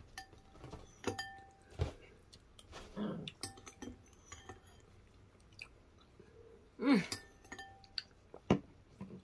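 Spoon clinking against a ceramic bowl several times, each tap leaving a short ring, with chewing in between. A brief voice-like sound about seven seconds in is the loudest thing.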